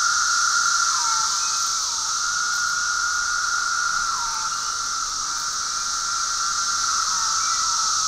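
Ear-splitting chorus of 17-year periodical cicadas (Magicicada) singing en masse: a dense, steady high drone, with individual calls that drop in pitch at their ends every second or two.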